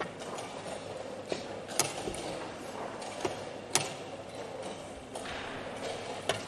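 Wooden chess pieces set down on the board and chess-clock buttons pressed during a blitz game: four sharp clacks, the loudest two about two seconds apart in the middle, over a steady room hiss.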